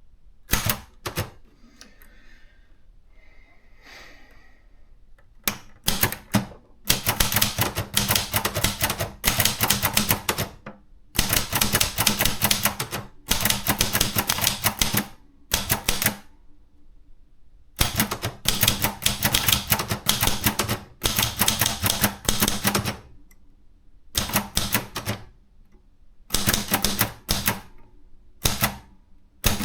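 Contessa 2 de luxe portable typewriter being typed on: a few separate key strikes at first, then from about five seconds in, fast runs of keystrokes in bursts of one to two seconds with short pauses between them.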